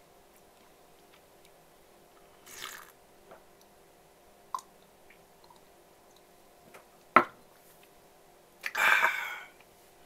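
Mouth sounds of someone drinking from a ceramic cup: a soft slurp, a single sharp knock about seven seconds in, then a louder slurp lasting about a second near the end.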